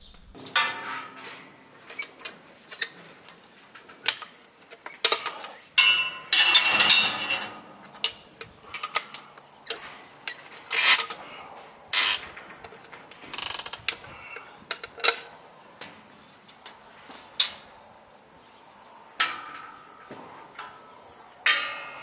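Irregular metal clicks, clanks and rattles as a bucking dummy is strapped onto a young bucking bull's back in a steel chute: buckles, rope and chute bars knocking, with a longer scraping rattle about six seconds in.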